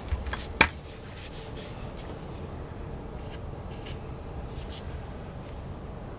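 An aerosol can sprayed in two short hissing bursts about three and four seconds in, then a fainter one, aimed into the drilled broken bolt in a transfer case output shaft. Sharp clicks of tools being handled come in the first second, the loudest about half a second in.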